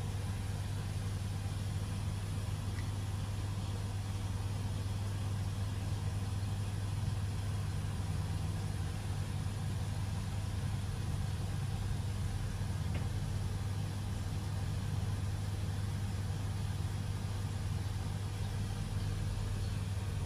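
A steady low hum with a faint even hiss, unchanging throughout.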